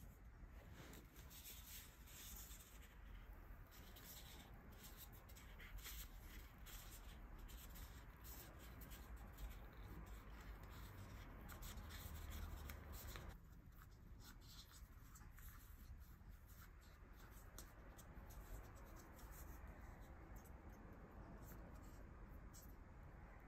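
Faint scratchy rustling of fingertips pressing and smoothing oat biscuit dough against the inside of paper cups, with many small irregular scratches.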